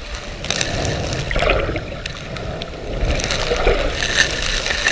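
Boat out at sea: water and wind rushing steadily with a low rumble, and a few short knocks and scrapes.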